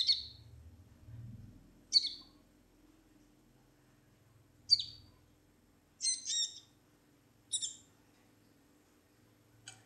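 A small bird giving short, high chirps, one every second or two, about seven in all.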